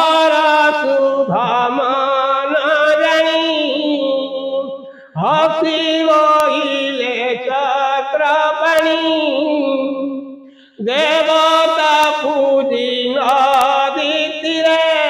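A solo voice chanting verses of the Bhagavata in a slow, melodic recitation tune, held in long phrases with short breaths about five and eleven seconds in.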